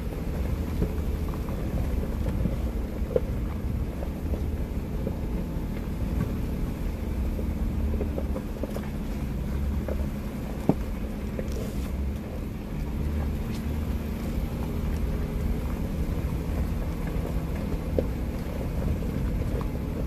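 2016 Jeep Wrangler Unlimited Rubicon's 3.6-litre V6 running steadily as it crawls along a dirt trail, heard from inside the cabin. A few sharp knocks come through, about three seconds, eleven seconds and eighteen seconds in.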